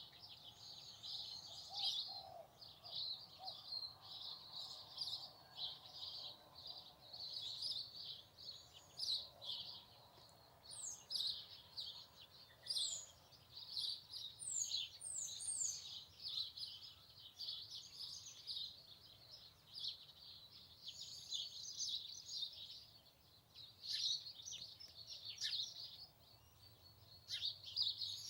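Garden birds chirping and singing in a dense, continuous chorus of overlapping high calls, with a few quick high falling notes about halfway through.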